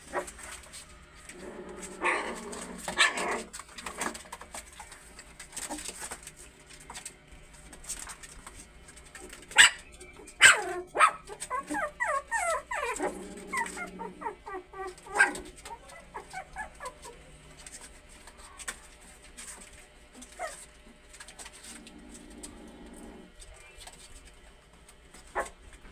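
Young puppies play-fighting, giving high yips, small barks and whimpers. The loudest yelps come about ten seconds in, followed by a quick run of squeaky yelps.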